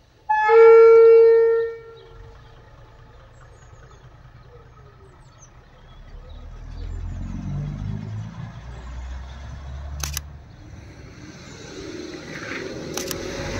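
Diesel railcar's horn gives one long single-note blast, the loudest sound here. Its diesel engine then rumbles louder from about halfway as the railcar pulls away, with two sharp clicks later on.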